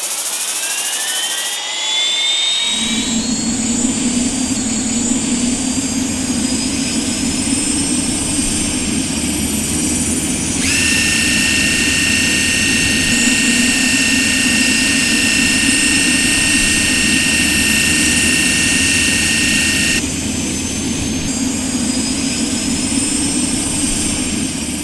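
Loud, steady engine or motor noise: a high whine that climbs quickly at first and then keeps rising slowly in pitch, over a low rumble that sets in about three seconds in. A second, steadier whistling tone joins about ten seconds in and drops out about twenty seconds in.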